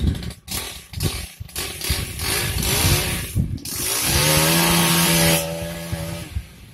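Two-stroke chainsaw revved in short rising bursts, then held at full throttle for about a second and a half before dropping back.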